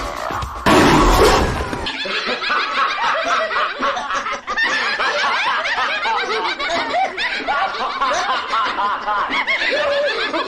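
High-pitched, rapid, cackling maniacal laughter from a horror-film soundtrack, after about two seconds of dark music with a loud hit near the start.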